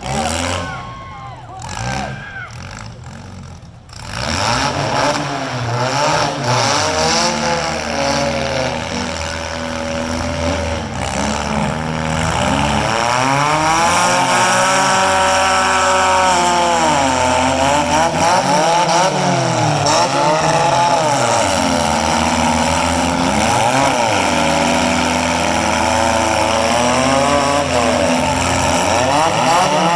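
Several four-cylinder demolition derby car engines revving up and down at once, their pitches overlapping. The noise is quieter for the first few seconds, then becomes loud and steady from about four seconds in.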